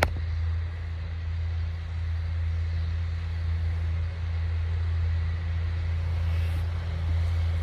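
A tractor engine running steadily, heard as a constant low drone. There is a sharp click at the start.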